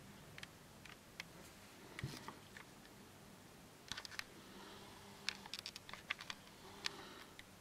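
Raindrops tapping on a window pane and its sill: irregular sharp ticks, sparse at first and coming thick and fast in the middle, over a faint low hum.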